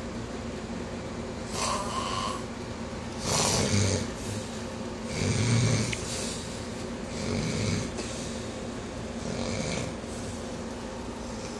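A person snoring loudly in a slow, regular rhythm, about one snore every two seconds, over a steady background hum.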